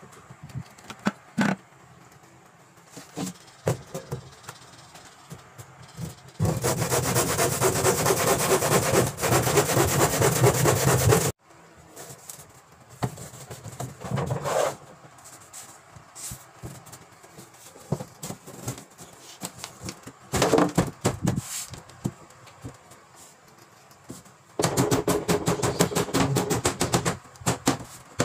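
Wood being cut with a saw in two long spells: one of about five seconds that stops abruptly, and a shorter one of about two and a half seconds near the end. Scattered knocks and clatter of boards and tools come between them.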